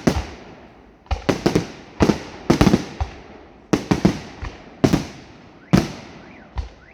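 Fireworks display: a string of sharp bangs of bursting aerial shells, each trailing off, some in quick clusters and others about a second apart, with a short rising whistle near the end.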